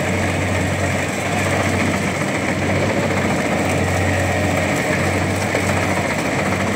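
Rice combine harvester engine running steadily, with a constant low hum under dense mechanical noise.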